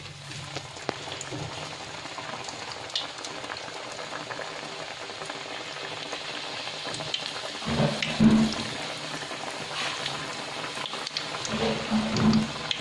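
Potato egg roll deep-frying in hot oil in an aluminium kadai: a steady sizzle with fine crackles. Two brief louder, low sounds come about eight and about twelve seconds in.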